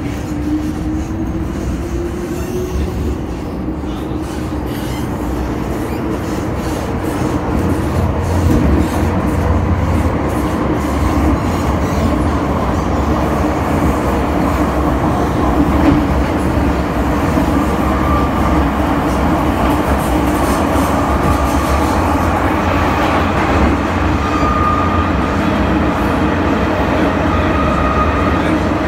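MTR Tsuen Wan Line M-Train running: the traction motor's whine rises in pitch over the first few seconds as the train pulls away from the station. This gives way to a steady, loud rumble of wheels on rail with motor hum, which grows louder after a few more seconds. The uploader prizes this motor's howl.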